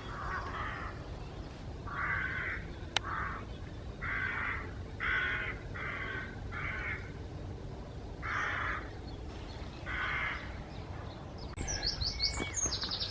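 Crows cawing: about eight harsh calls in loose groups of two or three, with a small bird starting to sing near the end.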